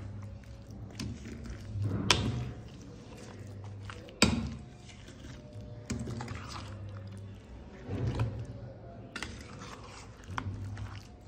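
A metal spoon stirring thick, oily chicken pickle masala in a stainless-steel bowl: wet squelching with the spoon knocking against the bowl, the sharpest knock about four seconds in.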